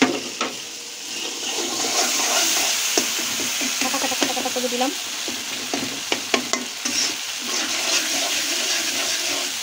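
Tomato and spice paste sizzling as it fries in a wok, stirred and scraped with a metal spatula, with a few sharp clicks of the spatula against the pan. The frying gets louder about a second in.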